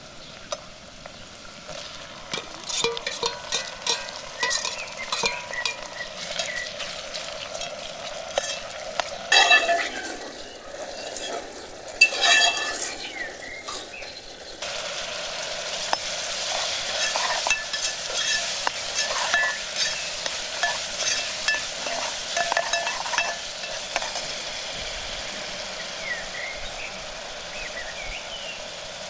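Food frying and sizzling in a steel pot while a spoon stirs it, scraping and clinking against the metal over and over. The sizzle changes abruptly twice, about a third and about halfway through.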